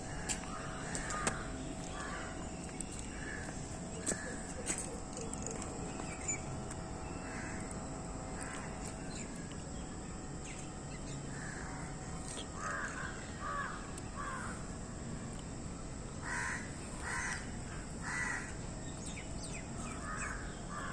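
Crows cawing, short calls coming in small groups of two to four, over a faint steady hum.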